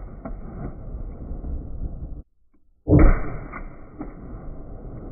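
Desert Eagle .50 AE pistol: the long echo of one shot dies away and breaks off, then after a short silence a single very loud shot about three seconds in, its report echoing and fading.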